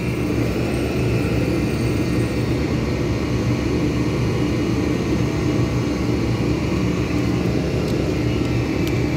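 Daikin VRV outdoor condensing unit (RXQ8AYM, R410A) running, giving a steady mechanical drone of compressor and fan with a low, even hum.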